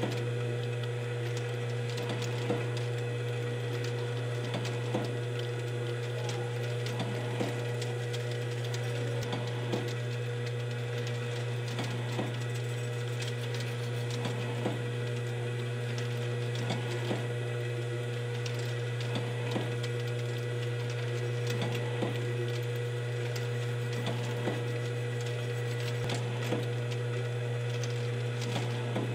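Cozzoli FSV50 vial filling and stoppering machine running: a steady motor hum under continual light mechanical clicking, with a sharper click repeating about every two and a half seconds.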